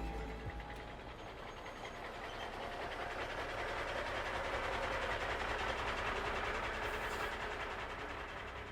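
Steady mechanical noise that swells toward the middle and then fades.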